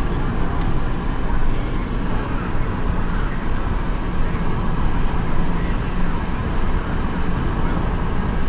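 Steady road noise inside a moving car's cabin: tyre and wind noise with the engine's drone underneath.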